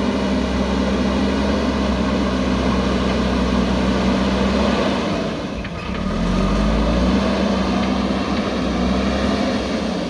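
JCB backhoe loader's diesel engine running steadily under work. The revs sag briefly about halfway, then pick back up.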